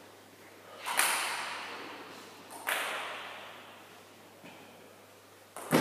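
Sharp knocks that ring on in a large echoing hall. Two come about a second and a half apart, and a third comes just before the end.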